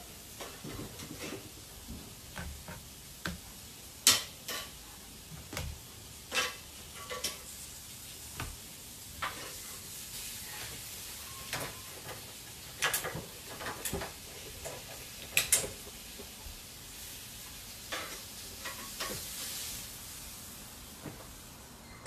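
Lamb sizzling on an open portable barbecue grill: a steady hiss with scattered sharp metallic clicks and clacks as the meat is handled at the grill.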